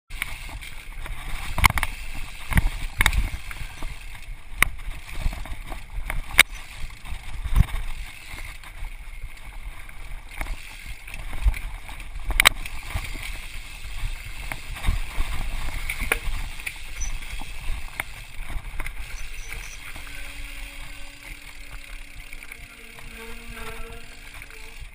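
Mountain bike rattling over a rough, rocky trail: a steady rumble of tyres and frame with frequent sharp knocks and clatters as it hits rocks and roots.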